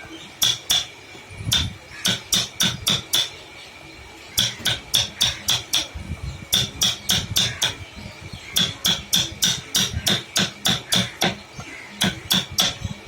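Hammer blows in quick runs of several strikes, about four a second, with short pauses between runs; each blow is sharp and clicky.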